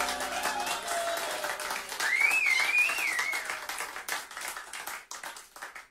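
The last held notes of traditional string music die away and hand clapping begins, with a wavering high tone about two seconds in. The claps thin out and stop near the end.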